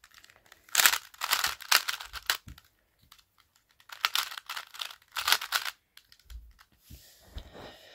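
Plastic 3x3 puzzle cube being turned by hand: quick runs of clacking layer turns in two bursts of about a second and a half with a pause between, then fainter clicks and soft knocks near the end.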